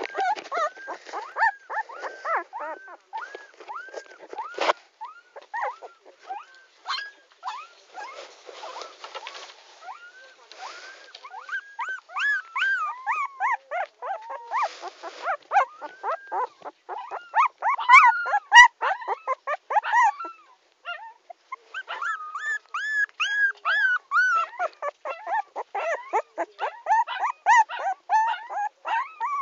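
Puppy whimpering and crying: a steady string of short, high whines that rise and fall in pitch, several a second, with a brief lull about two-thirds of the way through. Some rustling noise mixes in at times.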